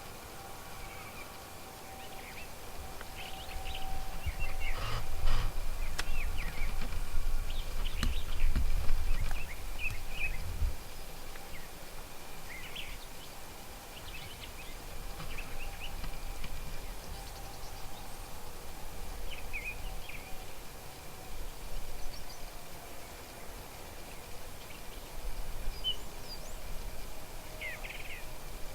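Birds chirping now and then in short calls over a steady outdoor background. A low rumble swells from about four seconds in and fades out around eleven seconds.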